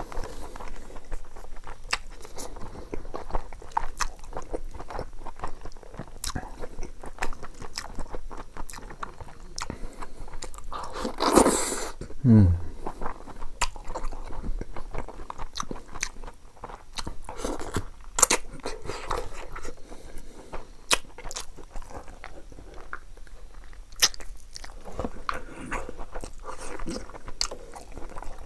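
Close-miked mouth sounds of a person eating chicken curry and rice by hand: wet chewing, biting and smacking clicks that carry on without a break. About halfway through, a louder sound slides down in pitch.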